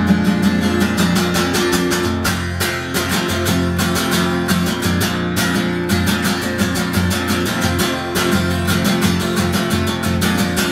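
Acoustic guitar strummed in a steady rhythm, chords without vocals, an instrumental break between sung lines of a song.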